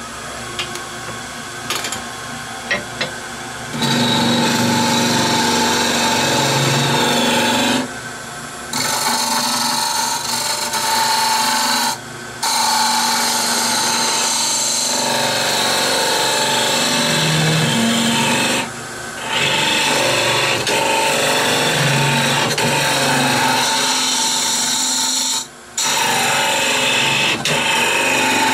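Wood lathe spinning a wooden blank while a round-nosed scraper hollows out its end grain, a loud scraping cut with a steady motor hum beneath. The cutting is lighter for the first few seconds, then goes on in about five long passes with brief breaks between them.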